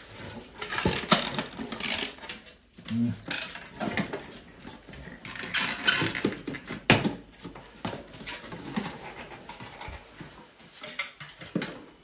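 Hard plastic parts and tools clattering and rustling as a refrigerator's plastic fan housing is handled over an open tool case, with irregular sharp clicks, the loudest about a second in and near seven seconds.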